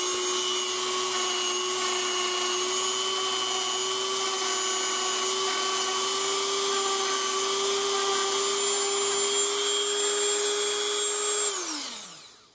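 Dremel rotary tool running at a steady high-pitched whine while it polishes the small steel hand (pawl) of a revolver's action. Near the end it is switched off and winds down, its pitch falling as it stops.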